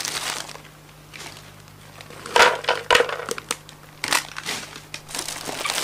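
Thin plastic snack packet crinkling and crackling in irregular bursts as it is handled and opened by hand. The loudest bursts come about two and a half seconds in and again from about four seconds.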